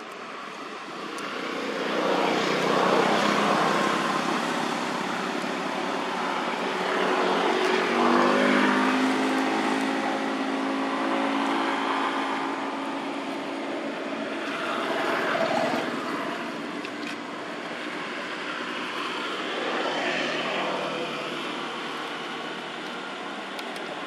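Engine noise of passing motor vehicles, swelling and fading several times; around the middle one engine's tone falls slowly as it goes by.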